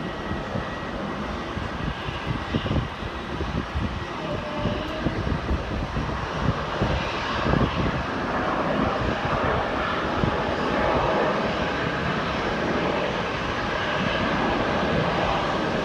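Jet airliner engines, their noise swelling about halfway through, with gusts of wind buffeting the microphone.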